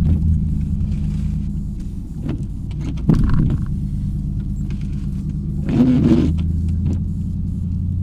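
Snowplow truck's engine running steadily, heard from inside the cab, with a couple of short knocks and rattles, about three seconds in and again about six seconds in.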